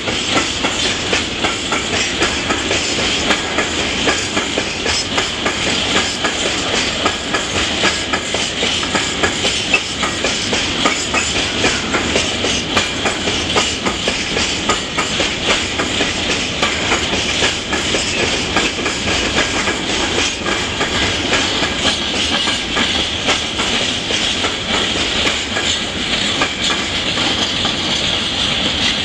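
Long freight train of open-top and sliding-tarpaulin wagons rolling past, its wheels clattering steadily over the rail joints amid a continuous rolling noise.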